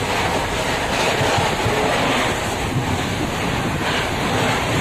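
Indian Railways sleeper coach running at speed, heard from inside the compartment: a steady rumble with rushing air noise.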